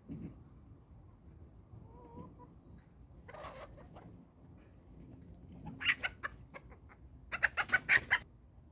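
Domestic chickens clucking: a short call about three seconds in, then two runs of quick, loud clucks, one about six seconds in and a louder one near the end.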